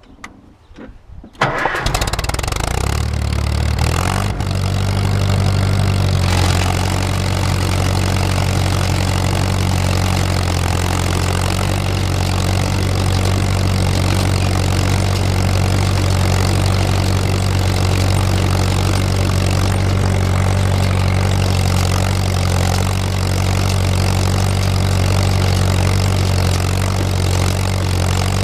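Tractor engine starting about two seconds in, then running steadily.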